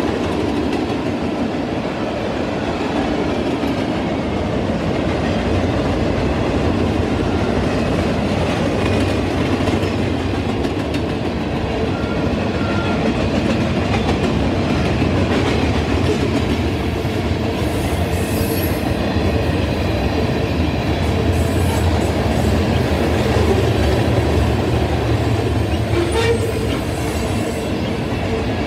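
Freight cars of a mixed freight train, tank cars and boxcars, rolling past at speed: a steady rumble of steel wheels on rail with clickety-clack at the rail joints.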